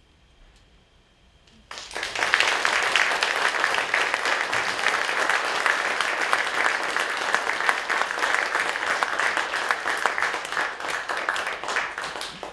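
A hush of near silence, then an audience breaks into applause suddenly just under two seconds in, many people clapping steadily and tailing off near the end.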